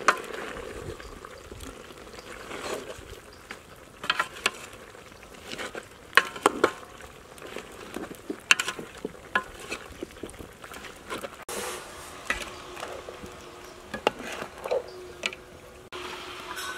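A metal ladle stirring and turning chopped vegetables in a large aluminium cooking pot, with irregular scrapes and clinks of metal against the pot.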